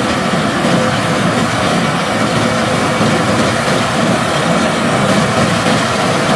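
John Deere 9660 STS combine running steadily while harvesting wheat: a constant loud drone of engine and threshing machinery, with a faint steady hum through it.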